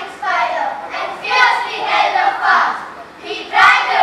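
Children's voices speaking in a string of short phrases.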